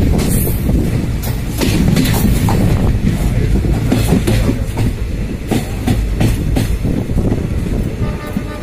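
Train running at speed, heard from its open doorway: a heavy rumble with the wheels clattering over rail joints and points. Near the end a steady tone comes in over the rumble.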